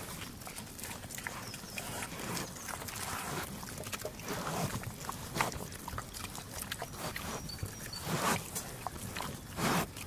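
Pigs grunting and snuffling as they feed: short, irregular grunts mixed with chewing clicks. A few louder grunts come near the end.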